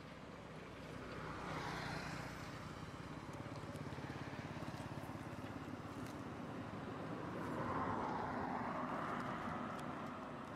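Motor vehicle engine noise from passing traffic. A steady low hum swells louder twice, about two seconds in and again near eight seconds, as vehicles go by.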